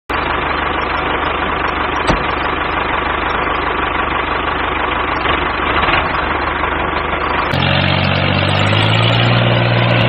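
An engine running steadily, which abruptly changes about seven and a half seconds in to a smoother, steadier hum with a clear low pitch.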